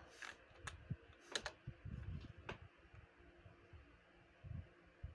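Faint, scattered clicks of a computer keyboard and mouse, about five in the first two and a half seconds, over quiet room tone, with a few soft low thuds near the end.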